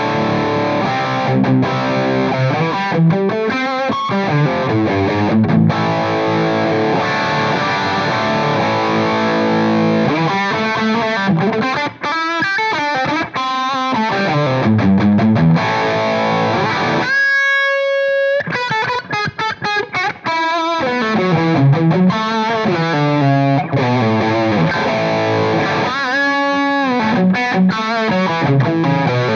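Electric guitar played through a Soldano SLO (Super Lead Overdrive) pedal on a crunch setting with its Deep switch off: distorted chords and riffs, with one sustained high note held alone about halfway through.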